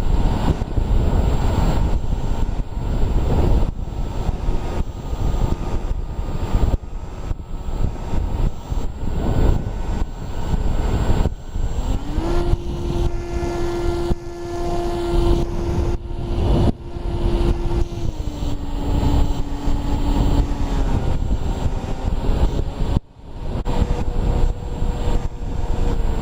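Electric pusher motor and propeller of an Easy Star foam model plane in flight, with heavy rushing wind noise. About halfway through a clear motor hum comes up in pitch and holds, drops a step lower a few seconds later, and fades out soon after.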